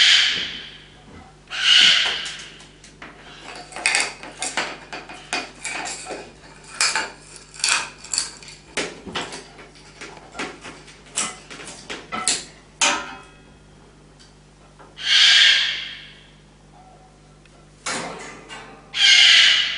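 Goffin's cockatoo biting and working at a piece of board with its beak: a run of sharp clicks, taps and cracks. Four short, harsh cockatoo screeches, each about a second long, are the loudest sounds, near the start, about two seconds in, about fifteen seconds in and near the end.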